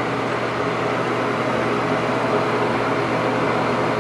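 Steady whirring hum of a ventilation fan, even throughout with no change.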